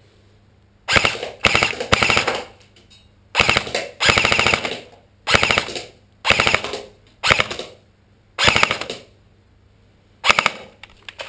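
Tokyo Marui SR-16 M4 electric airsoft rifle (AEG) firing about ten short full-auto bursts, each a fast rattle of gearbox cycling and BB shots lasting under a second, with a few single shots near the end.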